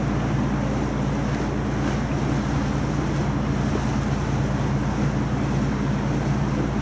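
River tour boat's engine running steadily, a low droning hum, under an even rushing hiss of wind and water.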